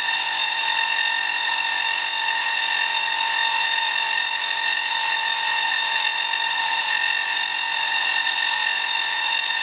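Full-bridge dual-resonant solid-state Tesla coil (DRSSTC) firing arcs in interrupter mode: the spark discharges give a steady, buzzy tone held at one pitch.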